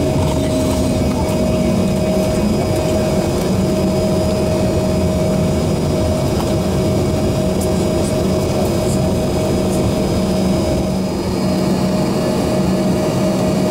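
Embraer ERJ-145's Rolls-Royce AE3007 turbofan engines at taxi power, heard inside the cabin: a steady rumble with a steady whine over it.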